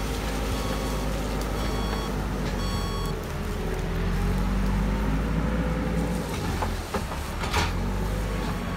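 JCB 4CX backhoe loader's diesel engine running steadily and working harder for a couple of seconds around the middle as the machine drives over cleared brush. A few short high beeps sound in the first three seconds, and there are two sharp knocks near the end.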